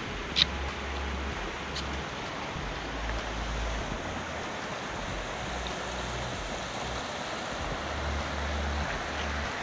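Steady hiss of falling or running water, with a single sharp click about half a second in.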